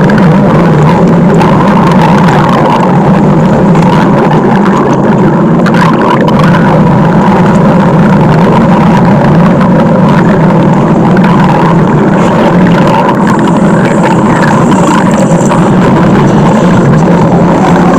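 Loud, continuous stomach growl sound effect: a low, steady, engine-like rumble that runs on without a break.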